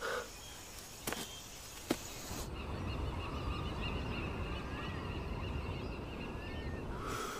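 Film soundscape: quiet jungle ambience with a short low call at the start and two sharp snaps, then about two and a half seconds in a steady low rumble with distant bird calls chirping and warbling over it.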